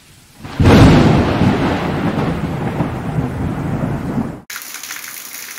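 A thunderclap: a sudden loud crack about half a second in, then a deep rumble that slowly fades before cutting off abruptly near the end.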